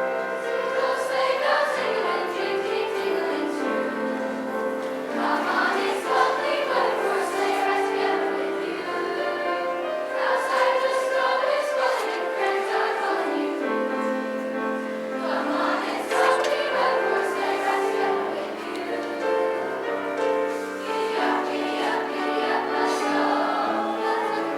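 School choir singing with instrumental accompaniment.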